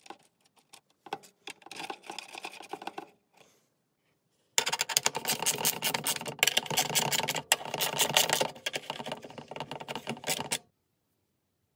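Light clicks and taps of laser-cut wooden parts being pushed together, then, about four and a half seconds in, a hand screwdriver driving small brass screws into the wood with a fast run of clicking for about six seconds that stops abruptly.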